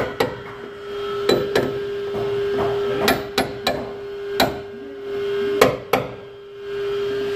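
About nine sharp, irregular knocks on the truck cab's sheet steel around a fresh welded rust patch, a few with a short ring after them, over a steady low hum.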